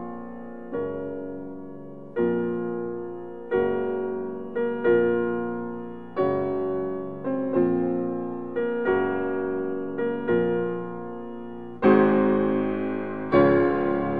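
Background piano music: slow chords struck about every second and a half, each left to ring and fade, growing fuller and brighter near the end.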